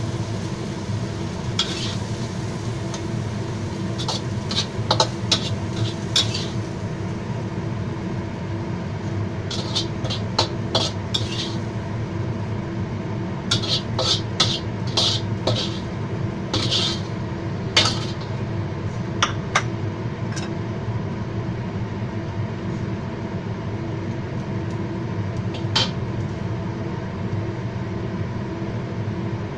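Metal spatula scraping and clinking against a wok in scattered bursts as stir-fried food is scooped out onto a plate, over a steady background hum.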